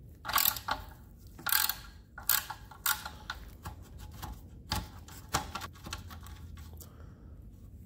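Irregular metallic clicks and scrapes of a hand tool turning out a 4 mm Allen head screw, a few of them coming in quick little clusters.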